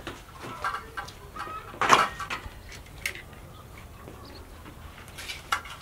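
Scattered short farmyard chicken clucks and bird chirps, with the clank of steel bowls being handled; the loudest sharp sound comes about two seconds in.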